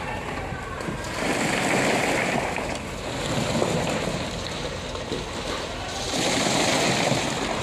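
Wet concrete sliding and splashing down a concrete mixer truck's discharge chute into formwork, swelling louder twice, over the steady rumble of the running truck and its turning drum.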